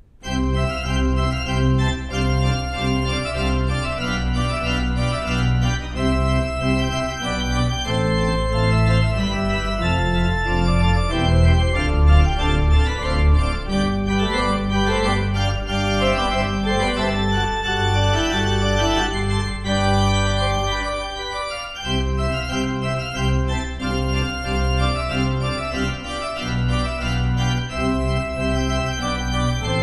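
Pipe organ playing full, sustained chords over a deep pedal bass, beginning suddenly. The low bass notes drop out briefly about three quarters of the way through, then return.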